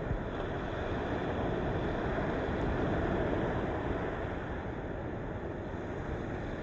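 Sea waves washing against the rocky shore of a cape: a steady rush of surf that swells gently and eases off again.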